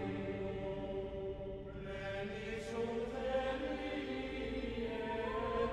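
Background music of slow sung chant with a choir-like sound: long held notes that move to a new chord about two seconds in and again near the end.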